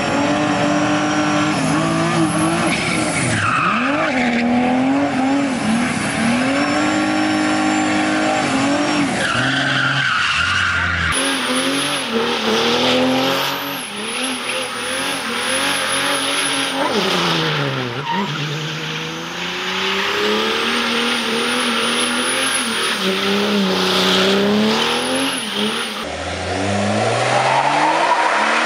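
Diesel BMW saloons doing burnouts: the engines revving up and falling back again and again while the rear tyres spin and squeal. The sound changes abruptly twice as the clips are cut together.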